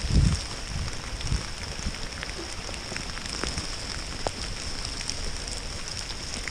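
Rain pattering steadily, with many scattered drops ticking sharply. There is a dull low thump right at the start.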